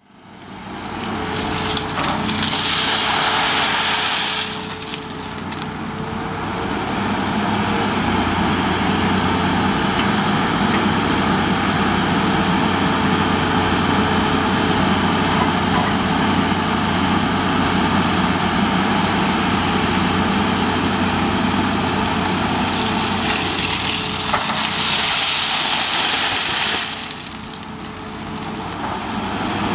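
CAT 330C long-front excavator's diesel engine running steadily under load with its hydraulics working, fading in over the first second. Twice, gravel rushes and rattles in the bucket with a louder hiss, once a few seconds in and again near the end.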